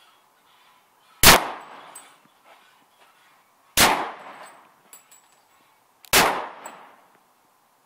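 Three shots from a .40 calibre rifle, evenly spaced about two and a half seconds apart, each a sharp report with a short ringing tail.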